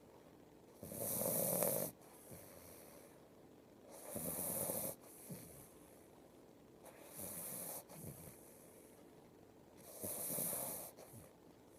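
Slow, regular snoring: four loud snores about three seconds apart, each lasting about a second, with quiet breathing between.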